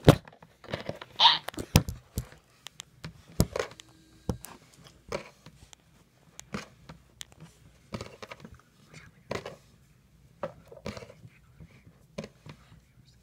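Hands kneading and pressing kinetic sand on a tabletop: soft scattered rustles and crumbles with irregular light knocks, the loudest ones in the first two seconds or so.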